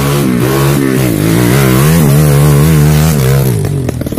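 Off-road trail motorcycle engine revving, its pitch rising and falling as the throttle is blipped again and again. The note drops away suddenly near the end.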